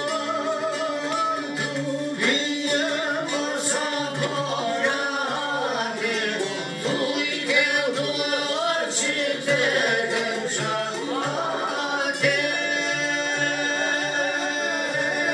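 Live Albanian folk music: accordion and violin playing together with a man singing, steady and continuous.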